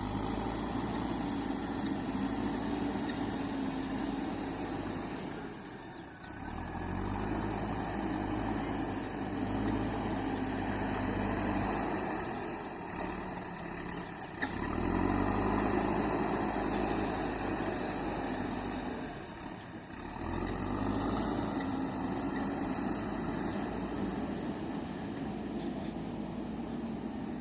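JCB 3DX backhoe loader's diesel engine running under varying load as it works the soil, its note rising and falling, with brief dips a few times.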